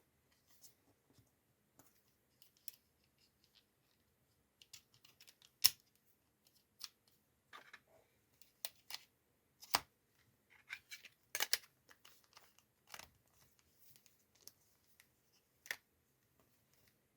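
Irregular sharp clicks and taps of a Samsung SGH-B300 mobile phone's keys being pressed and the handset handled, a few of them louder than the rest.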